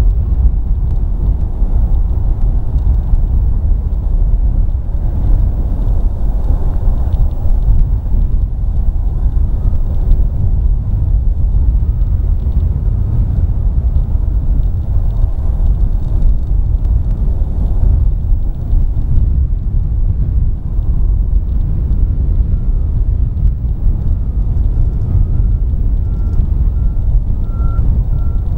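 Steady low rumble of a distant jet airliner's engines as it rolls on the runway. Faint repeated beeping starts about three-quarters of the way in.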